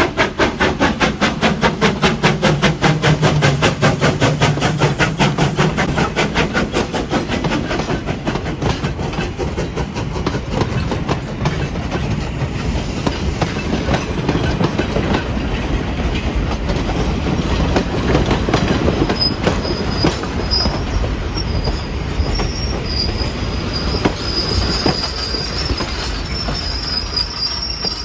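Sierra Railway No. 28, a Baldwin 2-8-0 steam locomotive, passing close and working hard with rapid exhaust chuffs that fade over the first ten seconds. Then the rumble and clicking of freight cars and passenger coaches rolling by, with high wheel squeal from about twenty seconds in.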